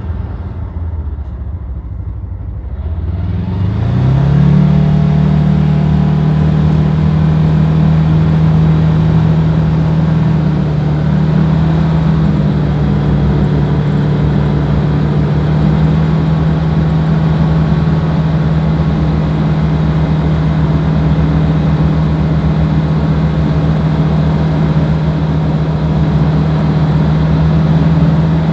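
Vehicle engine rising in pitch as it accelerates a few seconds in, then running at a steady pitch under load at cruising speed, with road and wind noise throughout.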